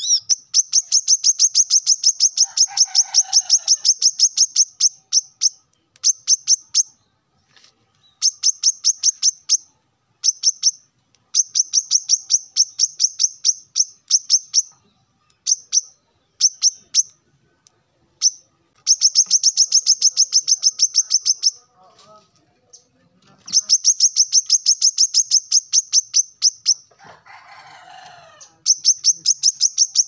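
A male brown-throated sunbird singing: long runs of rapid, high, sharp notes, several a second, in bursts of a few seconds broken by short pauses. This is the male's loud calling to rivals.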